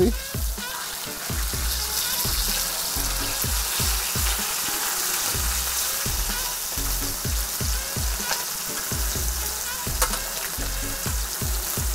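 Flour-coated walleye pieces frying in hot oil in a pan, a steady sizzle, with a few sharp clinks of metal tongs against the pan as the pieces are turned.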